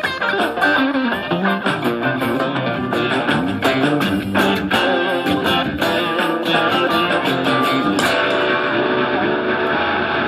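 Stratocaster-style electric guitar playing a funk improvisation in G: quick, choppy picked notes and chord stabs, then a note left to ring about eight seconds in.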